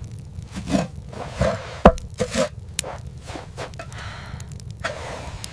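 Scattered scrapes and knocks, the loudest a sharp knock about two seconds in.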